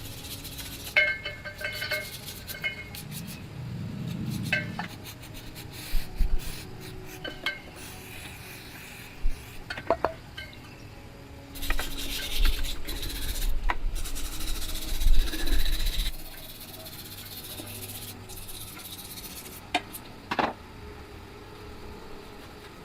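Hand work on metal parts: rubbing and scraping with scattered clinks and knocks, and a louder spell of scraping about halfway through.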